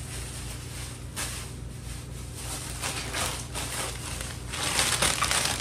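Rustling and crinkling of plastic grocery packaging being handled, louder near the end, over a steady low hum.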